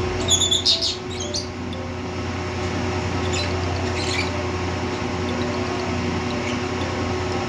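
Lovebirds chirping: a quick cluster of high, sharp chirps in the first second or so, then a couple of single chirps a few seconds later, over a steady low hum.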